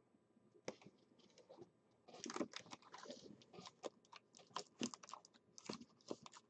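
Faint computer keyboard typing: irregular key clicks, a few at first, then quick clusters from about two seconds in.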